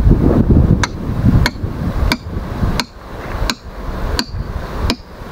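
Hand hammer striking a stone block in steady repeated blows, about one every two-thirds of a second, seven in all, each with a short metallic ring: stone being broken by hand. Wind rumbles on the microphone during the first second or so.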